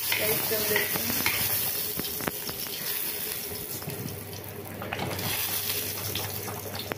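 Chopped garlic, green chilies and curry leaves sizzling in a little oil in a kadai, while a steel ladle stirs them, scraping and knocking against the pan now and then.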